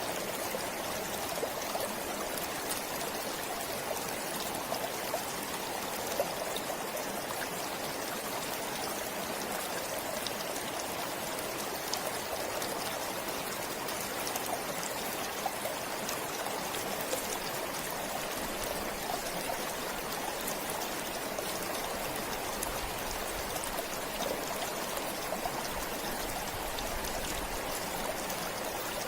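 Forest stream flowing steadily, with scattered small splashes and drips.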